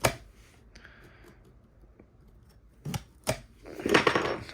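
Boxed auto parts and their packaging being handled: a sharp knock at the start, two more knocks about three seconds in, then rustling of packaging near the end.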